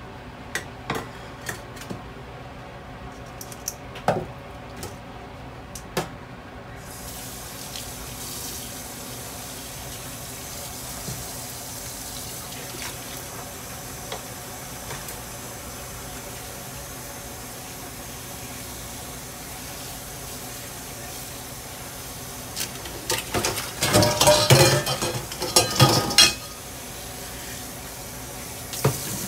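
Tongs clicking against a frying pan a few times, then a kitchen tap running steadily into a stainless steel sink from about seven seconds in, as parboiled chicken is rinsed in cold water. Near the end, a burst of loud clattering from the pan and mesh strainer being handled under the running water.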